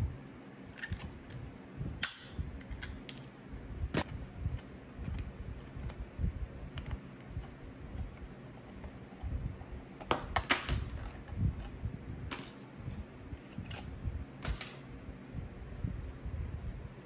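Hand pop-rivet gun setting rivets through thin license-plate aluminium, two sharp snaps about two and four seconds in as the mandrels break. Then a screwdriver loosens a worm-drive hose clamp around the cylinder, with scattered small metal clicks and clinks as the clamp comes off.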